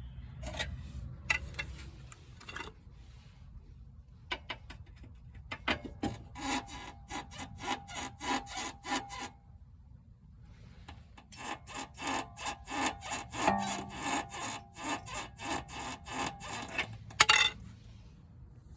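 Hand tool scraping back and forth on a suspension part, about three strokes a second, in two long runs. A single loud clank comes near the end.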